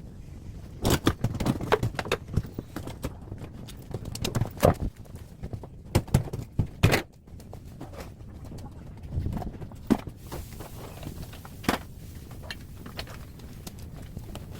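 Irregular sharp knocks and clattering bangs from dismantling a scrapped top-loading washing machine, coming in clusters with short pauses between.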